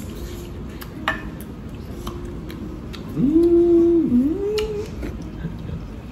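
A person's closed-mouth 'mmm' hum of enjoyment while chewing, held steady for most of a second about three seconds in, then dipping and sliding up. A few light clicks of metal chopsticks and spoons sound around it.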